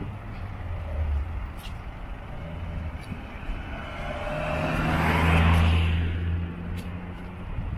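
A road vehicle passes by, its sound swelling to a peak about five and a half seconds in and then fading, over a steady low traffic hum.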